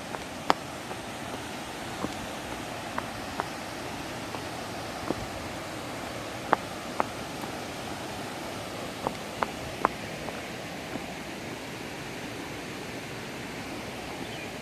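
Waterfall rushing steadily as an even hiss, with irregular sharp clicks scattered through it. The loudest clicks come about half a second in and at about six and a half seconds.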